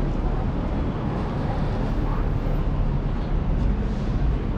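Steady city-street background noise: a low, even rumble of road traffic.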